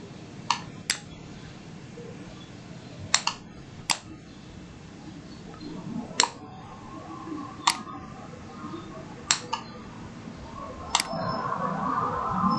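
Computer mouse clicking, single clicks and quick double clicks every second or two, over a low steady room hum.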